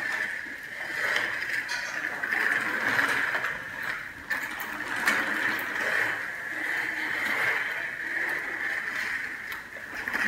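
Plastic baby-walker wheels rolling and rattling across a tiled floor, a steady rumbling noise that swells and fades as the walker moves, with scattered small clicks.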